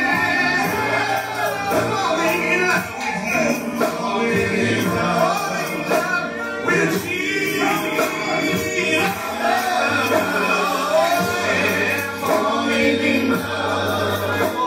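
Live gospel song: a choir and a male lead singing over a band with steady bass and sustained keyboard chords.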